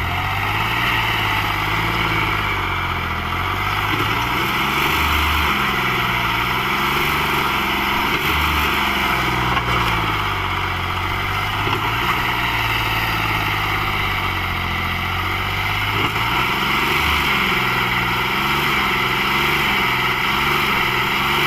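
John Deere 5103 tractor's diesel engine running, its pitch rising and falling as the engine speed changes.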